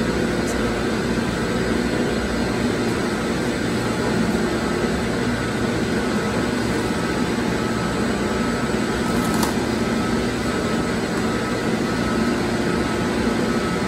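Steady, loud drone of plant-room machinery with several steady hums, air compressors running in the chiller plant. A light click about nine seconds in.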